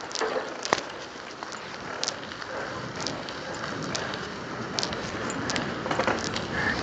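Mountain bike rolling over wet asphalt: a steady hiss of tyres on the wet road, with scattered sharp clicks and rattles from the bike.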